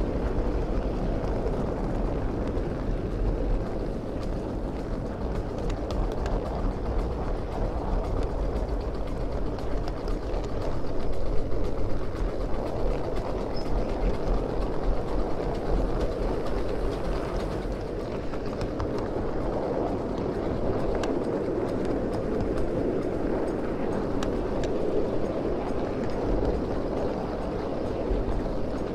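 Miniature ride-on railway train rolling along the track, heard from aboard: a steady rumble of steel wheels on rails with faint scattered clicks.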